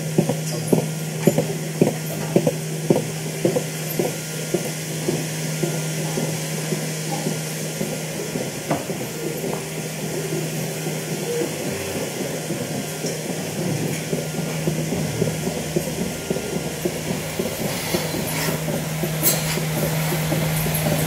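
Dairy milking machine running: a steady hum with rhythmic pulses about once a second that fade after several seconds, then a few clicks and knocks near the end.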